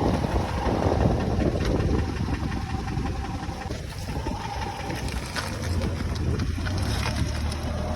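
Honda Prelude engine running with a knocking noise. The owner cannot place the knock and wonders whether it is piston slap or valve noise, judging it too quiet to be rod knock.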